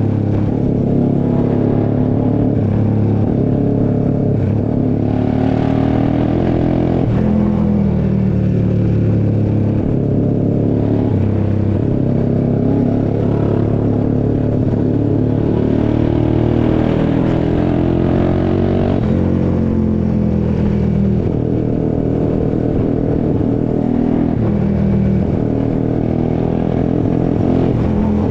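Honda CBX 250 Twister single-cylinder four-stroke engine, bored out to 79 mm and fitted with a custom-sized exhaust, running loudly. Its pitch climbs and drops back again and again as the revs rise and fall.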